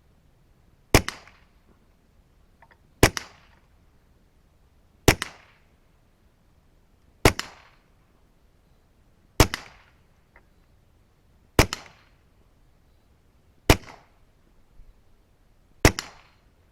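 Taurus TX22 .22LR pistol firing slow, aimed single shots of standard-velocity Federal Gold Medal Target, eight sharp reports about two seconds apart, each with a short echo tail. The rounds leave this pistol below the speed of sound, averaging about 966 fps, so there is no supersonic crack.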